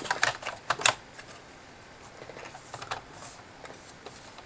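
Clicks and taps of a Lenovo Flex 2-15 laptop's bottom cover panel being fitted back onto the chassis. A quick run of sharp clicks comes in the first second, then a few faint ticks of handling.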